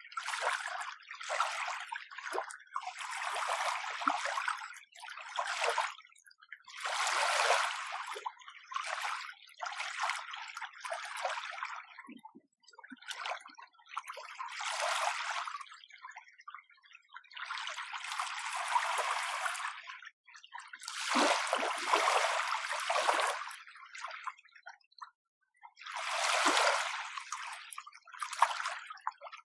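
Small, gentle sea waves lapping and washing on the shore in irregular hissing swashes a second or two long, with short quieter gaps and no deep rumble of surf.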